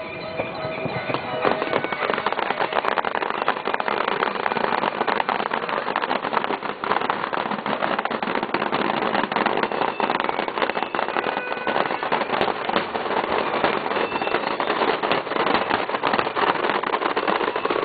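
Fireworks display: a dense, continuous barrage of rapid pops and crackles, thickening about a second and a half in.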